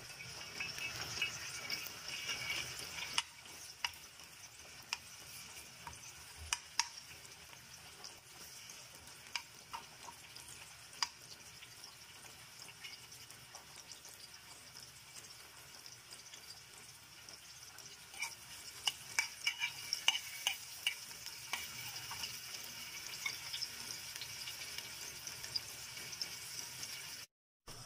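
Oil sizzling in a frying pan as chopped food fries in it, with sharp crackles and pops now and then. The crackling is busier in the first few seconds and again in the later part.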